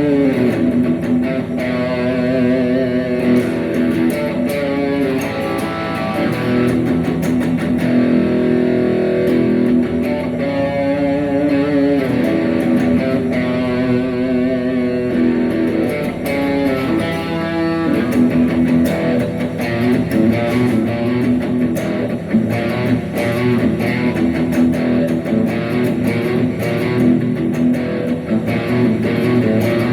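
Instrumental rock music led by electric guitar, with bass guitar underneath; the lead line wavers in pitch in places, as in string bends and vibrato.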